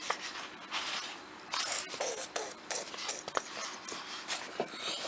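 Paper workbook pages being turned and handled: a run of irregular rustles and crinkles, with a few sharp ticks among them.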